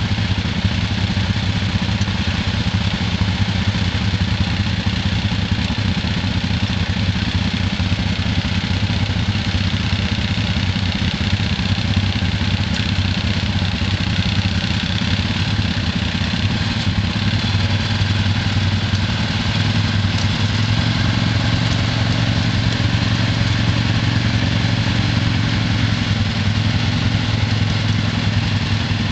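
ATV engines idling steadily, the engine note picking up slightly about twenty seconds in.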